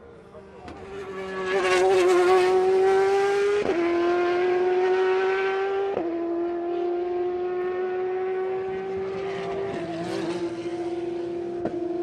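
A single race car's engine accelerating hard at high revs, its pitch climbing steadily and dropping sharply at each of four upshifts as it comes up the straight.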